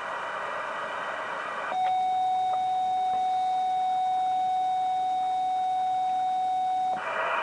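Yaesu HF transceiver's CW sidetone: one steady beep held for about five seconds while the set keys a carrier for the K-Loop-4 automatic loop tuner to read power and SWR. Receiver hiss is heard for the first couple of seconds, is muted while the tone sounds, and comes back when the tone cuts off.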